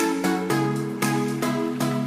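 Instrumental background music: a melody of short ringing notes, a new note every quarter to half second.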